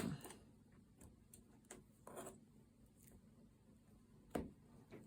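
Faint rubbing and a few soft taps as potholder loops are handled on the loom during a bind-off, with two slightly louder handling sounds about two seconds in and near the end.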